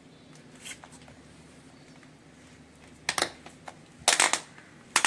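Strap and buckle of an inline skate being fastened by hand: three short bursts of rapid clicking in the second half, with a few faint ticks before them.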